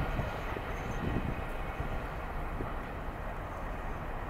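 Empty coal hopper cars of a freight train rolling away on steel rails: a steady rumble of wheels on track with a few soft knocks, slowly fading.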